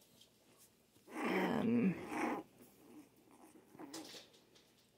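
Four-week-old Scottish terrier puppy growling in play-fighting. There is a rough growl of about a second and a half starting about a second in, then a shorter, fainter one near four seconds.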